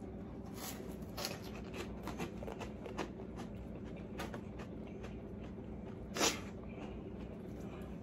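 A person eating hot food: faint chewing and mouth noises with scattered small clicks over a steady low hum, and one louder sharp sound about six seconds in.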